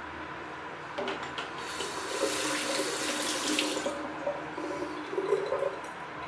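Water running from a sink tap into the basin. It starts about a second in, is strongest in the middle and stops near the end.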